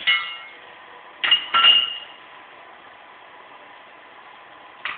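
Sharp metal-on-metal clinks with a short ring, from steel tools and wire rope being handled while splicing a wire rope sling: one right at the start, a close pair just over a second in, and another at the end.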